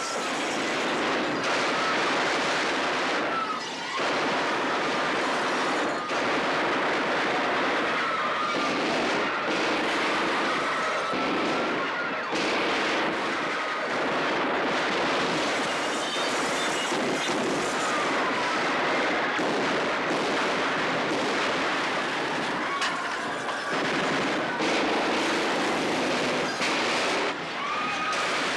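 Sustained automatic gunfire from a film shootout, a dense unbroken clatter of shots and bullet impacts, with people screaming over it now and then.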